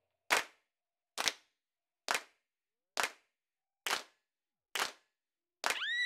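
Slow single handclaps, seven in all, about one a second, with silence between them. A high wailing cry starts right at the end.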